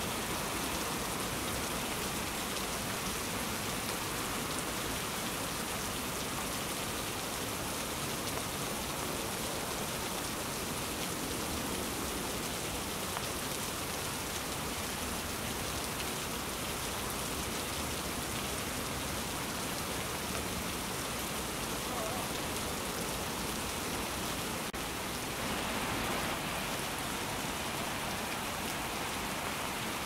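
Steady rain falling on rose bushes, an even patter of many drops on the leaves, swelling slightly for a moment near the end.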